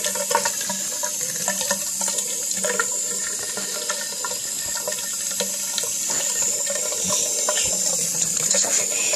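Bathroom tap running a steady stream into a white sink basin, the water splashing around the drain.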